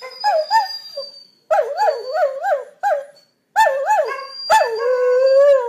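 Greyhound rooing: a howl-like song in three bouts, its pitch warbling up and down about three times a second, the last note held steady for about a second before it stops.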